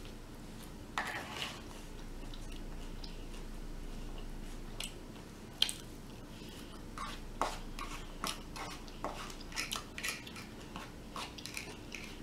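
Eating sounds: a mouthful of cooked greens being chewed, with a fork picking at a paper bowl. A scattering of small clicks and taps, which become frequent in the second half.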